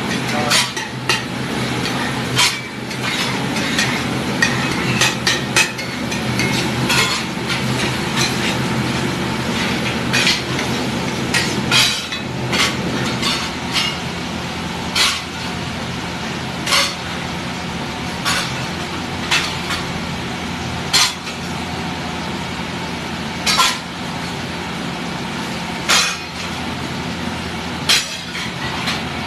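Metal spatula stirring pav bhaji on a large flat griddle (tawa), with sharp clanks as it strikes the pan, about every second at first and then every two seconds or so. A steady hum runs underneath.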